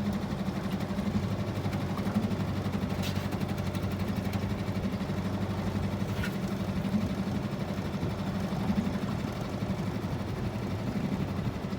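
Outboard motor on a small aluminium jon boat running steadily, its low hum pulsing evenly without a change in speed.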